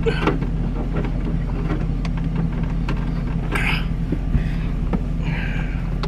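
GMC truck engine idling steadily, heard from inside the cab as a low hum, with a few light clicks and knocks from handling.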